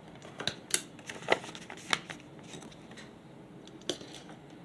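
Paper rustling with several sharp clicks of a small desk stapler being handled.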